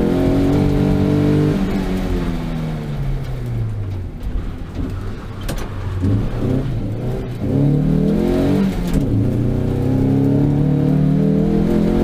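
Ford Sierra's engine heard from inside the car on a slalom run. The revs fall away for a few seconds, then climb hard again with a short break about seven seconds in, and it holds high revs near the end.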